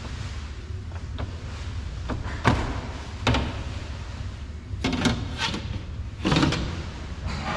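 Car door window glass being lifted, tilted and pulled out of the door shell: a handful of short scrapes and knocks as the glass rubs the door frame and channels, over a low steady hum.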